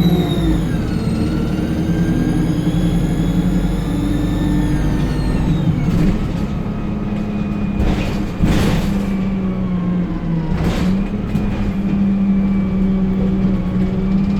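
ADL Enviro 200 bus diesel engine running under power with a loud high-pitched turbocharger whine that dips, rises again and dies away about five or six seconds in. The engine then runs on steadily, with three short hisses of air from the air brakes or pneumatics.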